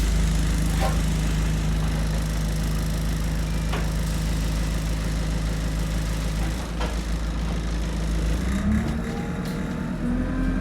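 Single-deck bus engine running steadily, heard from inside the bus, with a few faint knocks and rattles. About eight seconds in, the engine note begins to rise as the bus moves off.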